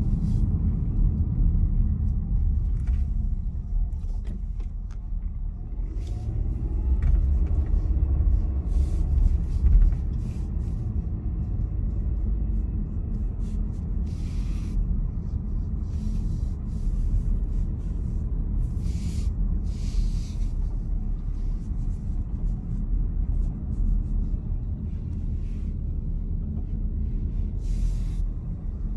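A car being driven: a steady low engine and road rumble.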